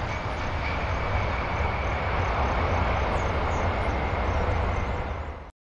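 Boeing 747 jet engines running as the airliner touches down and rolls out along the runway: a steady heavy rumble with a thin high whine held over it, cut off abruptly near the end.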